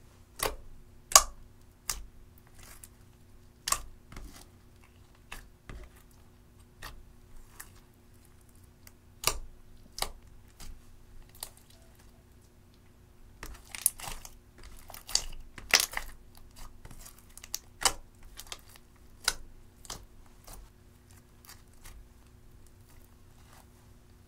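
Clear slime mixed with red eyeshadow being pressed, folded and stretched by hand, giving irregular clicks and pops, with a quicker run of crackling a little past halfway and fewer clicks near the end.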